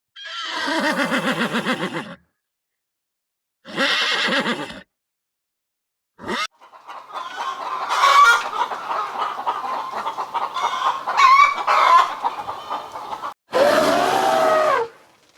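Farm-animal calls cut together: a quavering call at the start and a shorter one a few seconds later, then about six seconds of chickens clucking over one another, and a final rising-and-falling call near the end.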